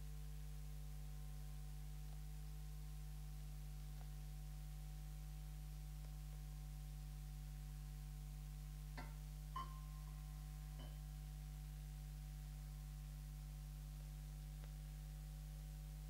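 Steady low electrical hum with faint higher steady tones. About nine seconds in there are a few light taps, one followed by a short metallic ring, from the metal lamp being handled.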